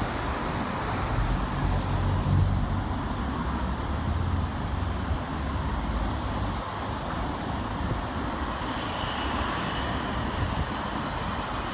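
Steady road traffic noise from cars passing on the road, with a low rumble that is strongest for the first six seconds or so and then eases.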